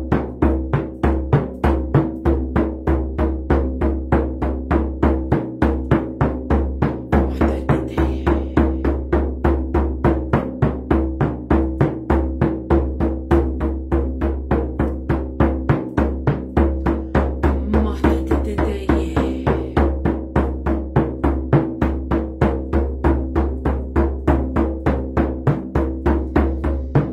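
Hide-covered frame drum beaten steadily with a beater, about three even beats a second, each stroke giving a deep resonant boom: a steady meditation drumbeat.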